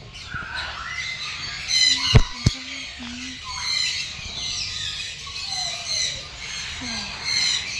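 Many birds squawking and calling over one another in quick, repeated high calls. Two sharp knocks about two seconds in are the loudest sounds.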